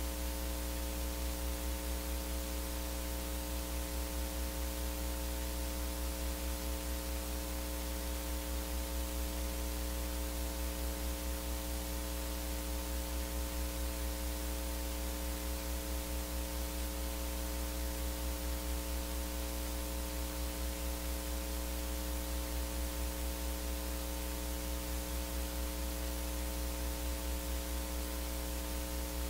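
Steady electrical mains hum, with a ladder of buzzing overtones and an even hiss over it, and no voice coming through: only the hum and hiss of the sound system or recording chain are heard.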